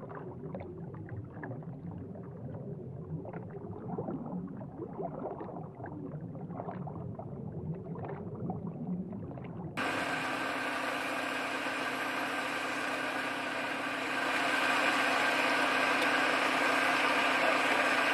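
Muffled underwater sound of bubbles, with small clicks and crackles. About ten seconds in it cuts to the surface, where an engine runs steadily, growing louder a few seconds later.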